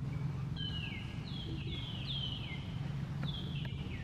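Baby macaque crying: four thin, high calls, each falling in pitch, over about three seconds. A steady low hum runs underneath.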